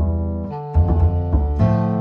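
Background music: piano-like keyboard notes over a bass line, a new note or chord about every half second.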